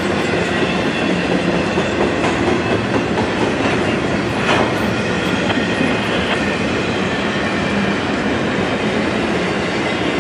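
Double-stack intermodal well cars rolling past: a steady, loud rumble of steel wheels on rail with clacking over the rail joints, and one sharp clank about four and a half seconds in.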